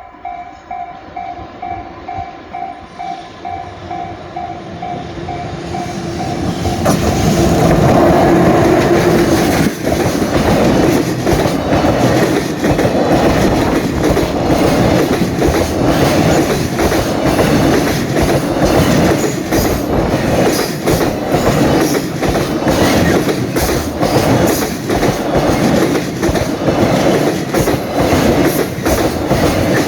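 A Japanese level-crossing warning bell rings in a steady ding-ding beat, then about six seconds in a JR Freight container train arrives and runs past, loud and close, with the rhythmic clickety-clack of its wagon wheels over the rail joints.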